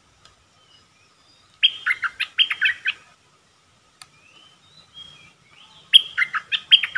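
A caged decoy bulbul singing two short bursts of quick whistled notes that drop in pitch, about four seconds apart, with a few soft calls between them.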